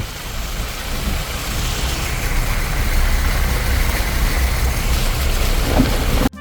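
Jeep driving on a forest ghat road: a steady low rumble of engine and road with a rushing noise over it.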